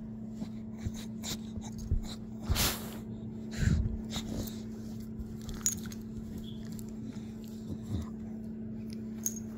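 A puppy making a scatter of short, separate sounds as it moves about, the loudest about three and a half seconds in, over a steady low hum.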